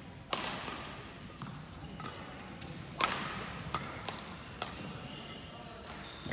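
Badminton rackets striking a shuttlecock during a rally: sharp hits a second or more apart, the loudest about a third of a second in and about three seconds in, with lighter knocks between, each echoing briefly in a large hall.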